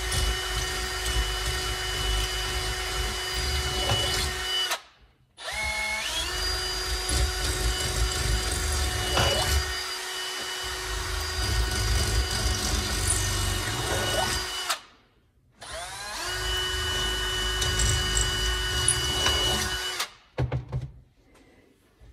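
A small handheld electric power tool's motor runs with a steady whine in three long runs of several seconds each, stopping briefly between them. At the start of the second run it spins up with a rising pitch.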